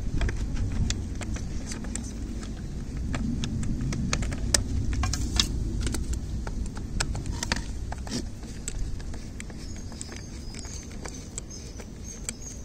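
Scattered clicks and light taps from a screwdriver and the plastic housing of a Preethi steam iron as it is screwed back together, over a low steady rumble.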